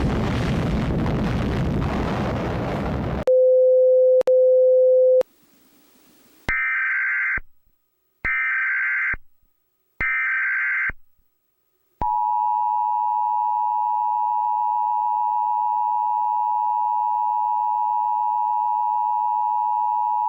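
Emergency Alert System broadcast tones: a loud rush of noise for about three seconds, a steady low beep of about two seconds, then three short bursts of the screeching digital SAME header data, and finally the long steady two-tone EAS attention signal held for about eight seconds.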